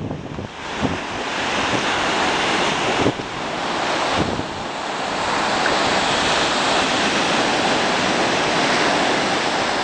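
Steady rush of sea surf, with wind buffeting the microphone. A few short handling knocks come in the first few seconds.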